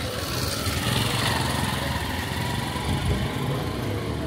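Small motorcycle engine running as it passes along the street, swelling to its loudest about a second in.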